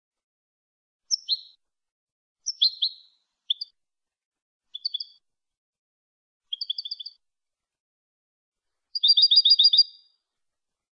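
European goldfinch singing: short phrases of high twittering notes broken by pauses, ending about nine seconds in with a quick run of about eight repeated notes.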